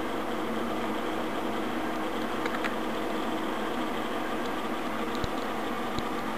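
Cooling fans of rack-mounted servers running steadily, an even whirring hum with a faint steady tone, and a few faint ticks in its second half.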